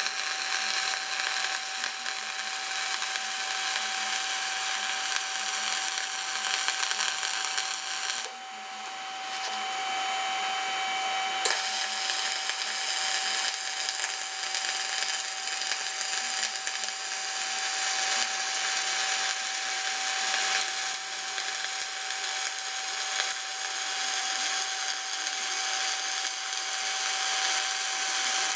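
Wire-feed welding arc crackling steadily as a bead is run on the steel blade of a John Deere 1010E forwarder, with a steady hum underneath. The crackle dips briefly about eight seconds in, then comes back.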